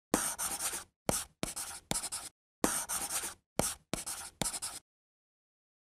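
Sound effect of a pen scribbling on paper in eight quick strokes separated by brief gaps, stopping short about five seconds in.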